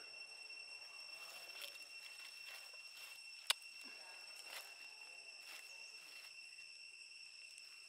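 Faint, steady, high-pitched insect drone, a pair of even tones held throughout. A single sharp click comes about three and a half seconds in.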